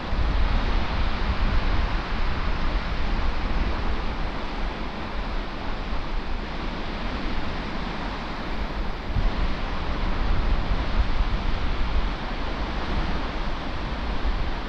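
Wind buffeting the microphone with a low, gusty rumble, over the steady wash of surf breaking on the shore.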